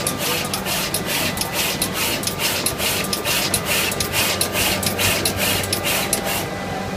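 Multi-head SMT pick-and-place machine placing components on LED tube-light boards: its row of placement heads cycles in a rapid, even clicking rhythm over a steady machine hum. The clicking stops about six and a half seconds in.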